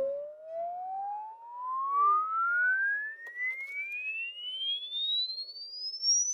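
Sine-wave test-tone frequency sweep played through a pair of Jensen CS315 three-way loudspeakers, a single pure tone climbing steadily from a mid pitch to a high whistle, for a frequency-response measurement.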